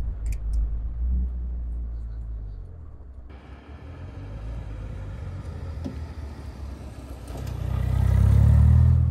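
The Morgan 4/4's Ford Zetec four-cylinder engine running on the road, with tyre and road hiss. Near the end the engine note swells louder, then cuts off suddenly.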